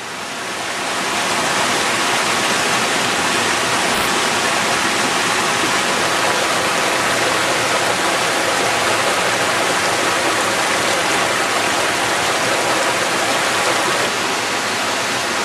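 Small mountain stream cascading over rocks: a steady rush of water that swells up over the first second or so, with one brief click about four seconds in.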